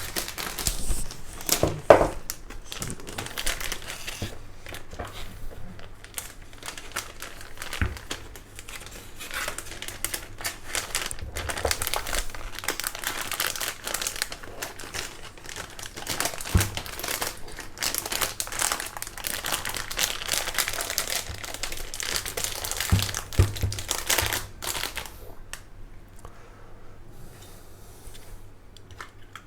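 Crinkly packaging rustling and crumpling as a keyboard is wrapped and packed back into its box, with a few soft knocks. It dies down about 25 seconds in.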